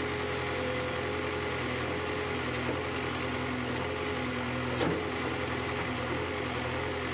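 JCB backhoe loader's diesel engine running steadily while the backhoe arm digs, with one short knock a little under five seconds in.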